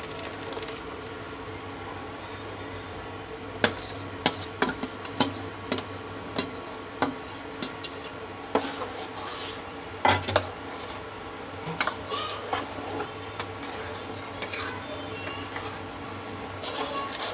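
A steel ladle scrapes and clinks against a steel bowl and a kadhai as spinach purée is scraped out and stirred into the masala. There are irregular knocks and scrapes from about three and a half seconds in, over a steady hum.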